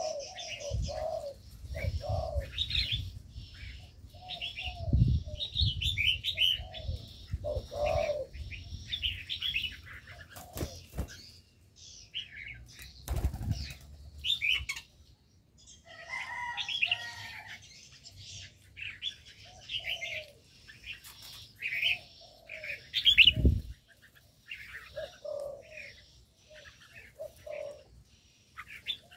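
Spotted doves cooing in short low phrases over the quick, bright chirps of red-whiskered bulbuls and other small songbirds, with a few wing flutters as birds come in to land, the loudest about three-quarters through.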